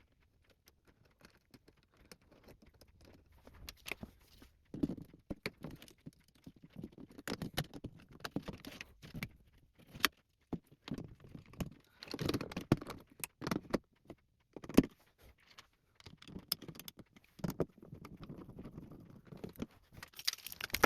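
Hands working the wiring of a BG-12 fire alarm pull station: irregular small clicks, taps and rustles of wires and plastic parts being handled, with a few sharper clicks.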